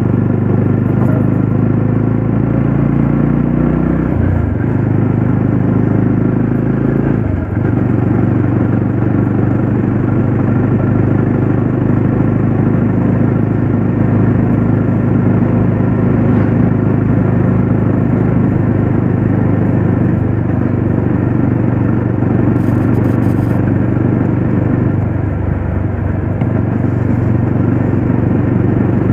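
Yezdi Roadster's single-cylinder engine running under way, heard from the rider's seat. The engine note shifts in pitch a few times as the speed changes: about four seconds in, again at about seven seconds, and near the end.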